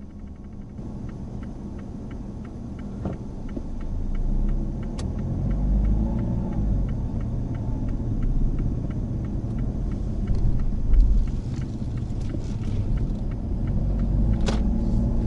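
Mazda Axela Sport hatchback on the move, heard from inside the cabin: a low rumble of engine and road noise that grows louder about four seconds in as the car picks up speed. Under it runs a regular light ticking about three to four times a second, with two sharper clicks, one about five seconds in and one near the end.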